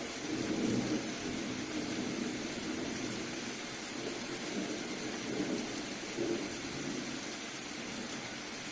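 Steady soft rain hiss with a low rumble of distant thunder that swells up about half a second in and slowly rolls away near the end.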